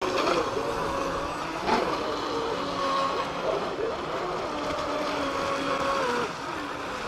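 Electric motors of Pro Boat Blackjack 42 and Miss Geico 17 radio-controlled speedboats at speed: several whining tones that glide up and down in pitch as the throttle changes, over a hiss of water.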